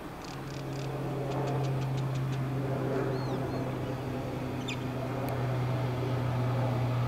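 Millennium electric train approaching the platform: a steady low hum that grows gradually louder as it nears. Birds chirp and trill over it, mostly in the first few seconds.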